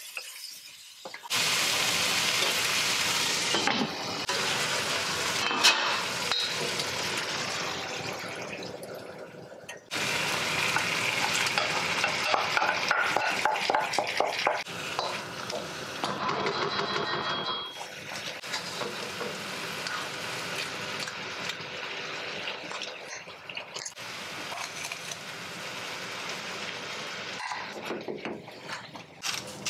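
Tomatoes frying in a wok with a steady sizzle and repeated scrapes of a spatula stirring against the metal. The sizzle jumps suddenly louder a second or so in and again about ten seconds in, where cooked scrambled egg goes back into the wok, and eases off in the last third.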